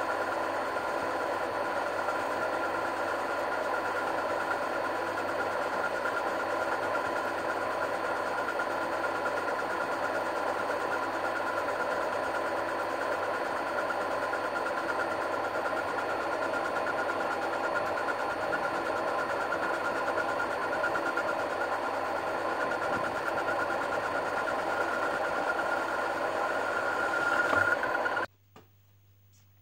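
Metal lathe running steadily as it turns a steel pin with a carbide tool, a constant motor and gear whine with cutting noise. It swells slightly near the end, then cuts off suddenly.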